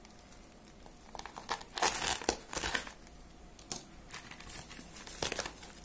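Plastic bubble mailer crinkling and tearing as it is pulled open by hand, in short bursts, busiest from about one to three seconds in, with a few more near the end.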